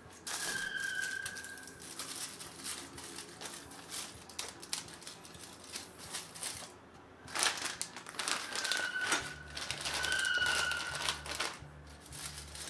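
Aluminium-foil food parcels and plastic bags crinkling, with clicks and rattles from the dishwasher's wire rack and a glass jar as the parcels are packed into the upper rack.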